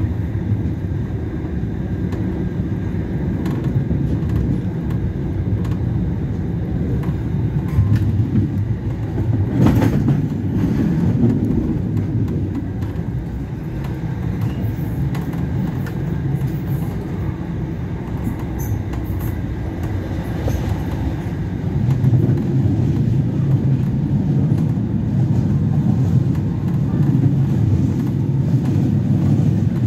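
Heard from inside a Bombardier M5000 Manchester Metrolink tram in motion: a steady low rumble of the wheels on the rails. There is a single sharp knock about ten seconds in, and the rumble grows louder about two-thirds of the way through.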